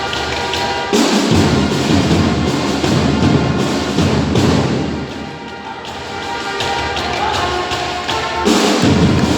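Music for a competition routine playing loudly, with repeated thuds over it. It swells louder about a second in and again near the end.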